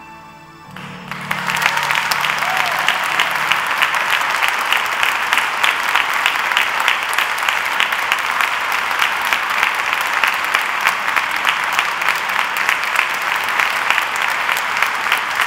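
Concert audience applauding, breaking out suddenly about a second in and keeping up a dense, steady clapping.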